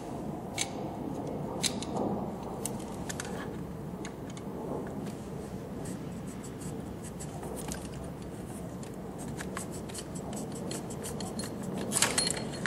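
Small metal clicks and scrapes of a hand-held LPi injector removal tool being fitted and worked on a fuel injector, quickening in the last few seconds, with a louder cluster of clicks near the end as the injector is drawn out.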